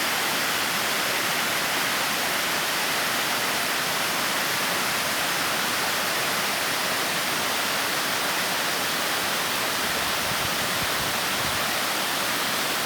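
Waterfall: water pouring and splashing in a steady, continuous rush.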